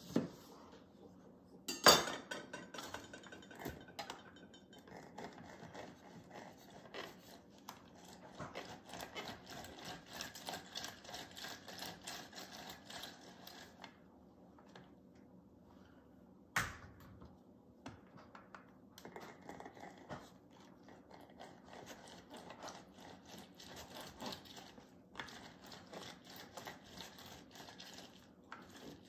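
A lemon cut with a knife on a plastic cutting board, with a sharp knock about two seconds in, then lemon halves pressed and twisted on a stainless steel citrus reamer: repeated faint rubbing and scraping. A pause comes about halfway, ending in another single knock.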